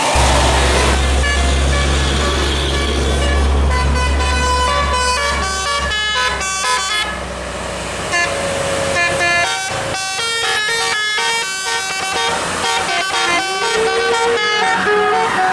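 A bus's multi-note musical telolet air horn playing a fast melody of short stepped notes, with one sliding note near the end. Under the first half, the bus engine's low drone, which fades about six seconds in.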